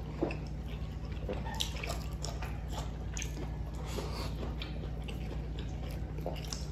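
Small wet mouth and utensil sounds of people eating: scattered clicks, smacks and light taps of chewing and spoons on plates, over a steady low hum.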